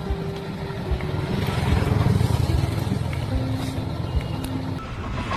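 An engine running with a low rumble that swells about halfway through, with short steady whines at shifting pitches over it.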